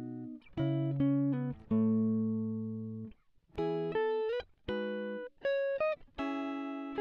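Background music of slow plucked notes and chords, each ringing out and fading, with short gaps between phrases and a few notes bent or slid in pitch.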